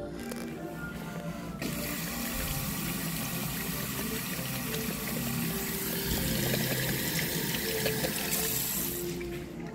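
Tap water running onto a hand and into a ceramic washbasin, splashing and draining away. The flow starts suddenly about a second and a half in and stops about a second before the end.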